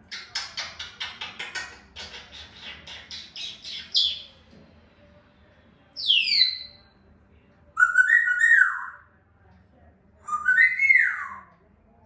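African grey parrot calling: a quick run of raspy chattering notes, about four a second, for the first four seconds. Then comes a whistle that falls steeply in pitch, followed by two shorter whistled calls that rise and then drop.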